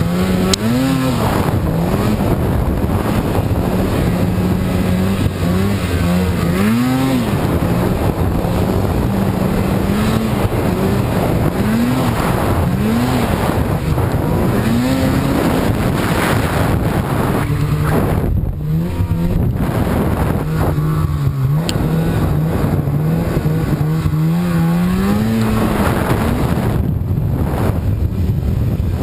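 Polaris mountain snowmobile's two-stroke engine running hard through deep powder, its pitch swelling up and dropping back again and again as the throttle is worked, over a steady rushing noise.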